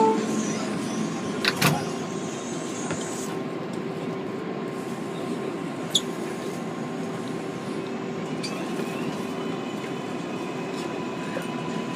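Inside an R188 subway car: the doors close with a knock about a second and a half in, then steady cabin noise as the train gets under way, with faint rising electric motor whine near the end.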